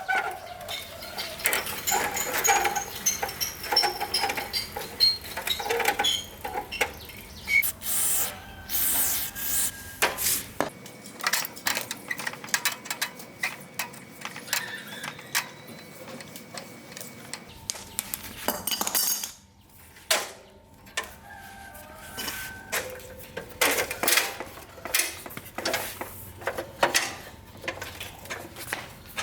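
Metal bicycle parts and hand tools clinking and knocking in an irregular run of sharp taps, typical of a bike being taken apart.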